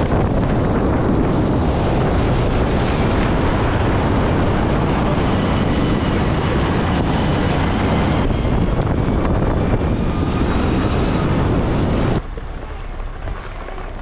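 Steady rush of wind and road noise from a moving vehicle, with wind buffeting the microphone; it cuts off abruptly about twelve seconds in, leaving a quieter rush.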